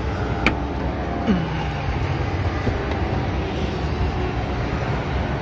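Iveco truck's engine and road rumble heard from inside the cab, steady, with a sharp click about half a second in.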